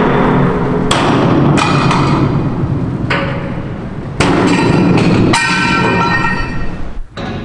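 Hammer blows on a steel support stand under a ship's hull, about seven hard strikes at irregular intervals of roughly a second, each ringing briefly; typical of knocking the supports free to release a new hull for launch.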